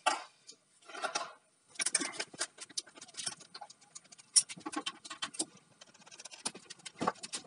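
Irregular small clicks, taps and scrapes of metal hardware at lead-acid battery terminals as cable connections are undone and moved.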